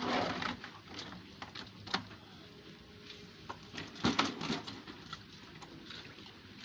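Live catfish broodstock being handled and set in a weighing container: short bursts of scuffling and knocking at the start and about four seconds in, with single sharp knocks about one and two seconds in.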